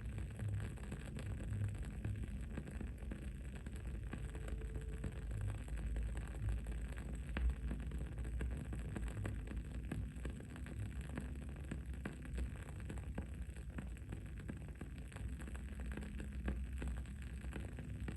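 Wood-wick candle crackling: irregular small pops and ticks, one a little louder about halfway through, over a steady low background rumble.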